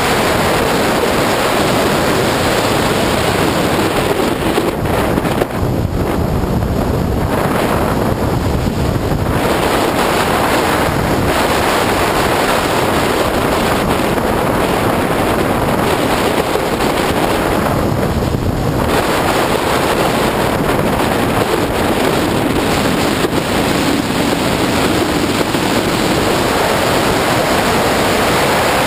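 Wind rushing over the microphone of a camera mounted on an Opel Speedster driven at track speed, a loud steady noise with road and car noise beneath it. The rush eases briefly twice, once about six seconds in and again past the middle.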